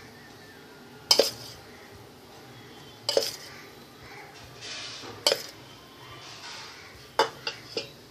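A metal spoon clinking against a stainless steel bowl as spoonfuls of flour are added: single sharp clinks about every two seconds, then three quick taps near the end.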